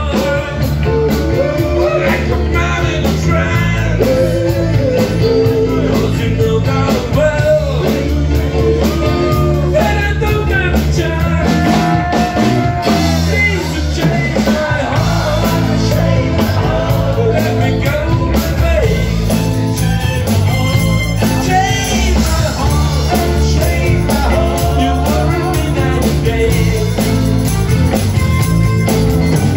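Live rock band playing a blues-rock number with drums, bass, electric guitar and keyboards, over a steady beat, with a lead melody sliding up and down in pitch above the band.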